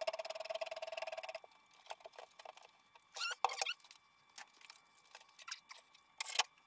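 Power drill driving a screw in, its motor whining with a fast pulsing for about a second and a half before it stops. After that, a few light clicks and clatters of handling.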